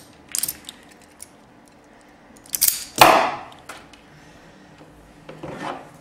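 Hand wire strippers working on a thin wire: small metal clicks, then a louder snap and a short scrape about three seconds in as the insulation is cut and pulled off, with a few more tool clicks near the end.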